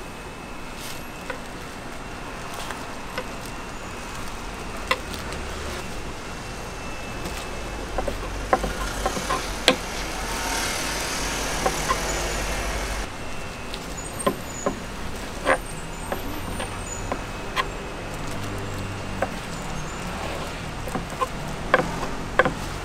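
Road traffic running steadily, with a vehicle passing close by in the middle, its rumble and hiss swelling and then dropping away. Scattered sharp knocks and clatters sound throughout, with a quick run of them near the end.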